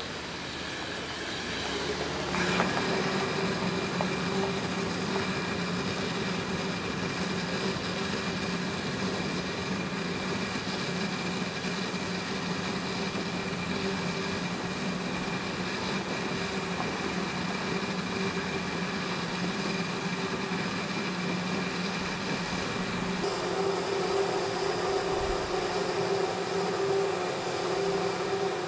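Shay geared steam locomotive standing with steam hissing steadily and a steady hum underneath. There is a sharp knock about two seconds in, after which the hiss grows louder. There is no exhaust beat, so the engine is not working.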